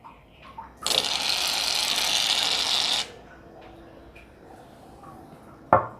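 Aerosol can of shaving foam spraying for about two seconds: a steady hiss that starts and cuts off abruptly. A sharp knock comes near the end.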